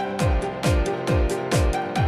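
Background electronic music with a steady kick drum about twice a second under held synth chords.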